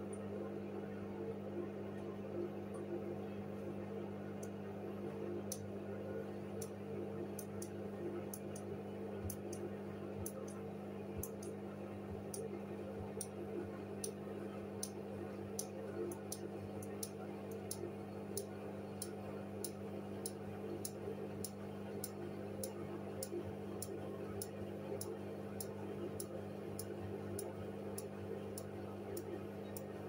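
Hoover front-loading washing machine running, its drum turning wet laundry: a steady motor hum with a light clicking that settles into about two clicks a second.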